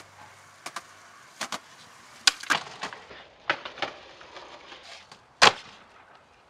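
Skateboard on concrete: wheels clicking over pavement cracks, a sharp tail pop, the trucks grinding along a concrete ledge for a couple of seconds, then a loud slap as the board lands about five and a half seconds in.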